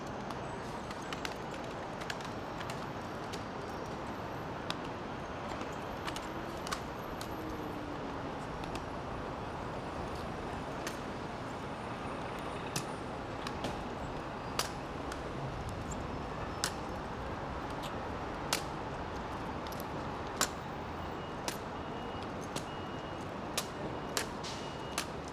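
Sharp single clacks every second or two, a little more often near the end, from honor guard rifles being slapped, handled and grounded on pavement during a rifle drill without commands, over a steady hum of outdoor crowd and traffic.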